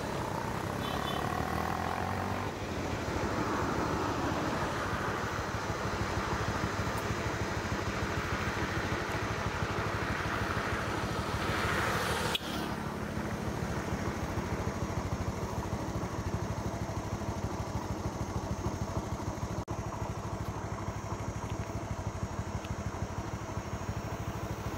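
A motor vehicle engine running steadily with an even pulsing throb. It rises in pitch and loudness up to about twelve seconds in, drops suddenly, then runs on steadily.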